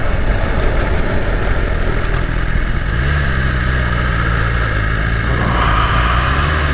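Motorcycle ride with wind rumbling on the microphone. About three seconds in, the rumble gives way to a steady, low engine note as the bike slows toward idle.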